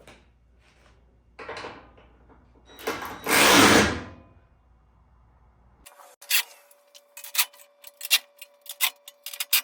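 Tightening the running-board mounting bracket nuts with a 13 mm socket tool. First come two short rasping runs, the second louder and about a second long. Then a series of sharp, irregular metallic clicks follows.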